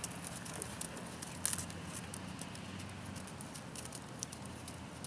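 Faint, irregular patter of a horse's hooves on a sand arena, with one sharper click about a second and a half in, over a steady low hum.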